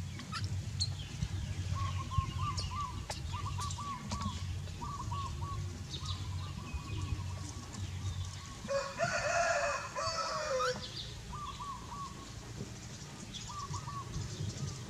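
A rooster crows once, about nine seconds in, for about two seconds, the loudest sound here. Small birds chirp in short repeated phrases before and after it, over a steady low hum.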